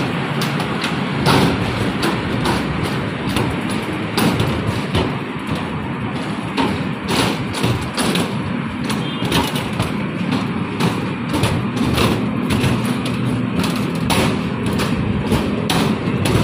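Road vehicle rumble with many short knocks and thumps scattered throughout.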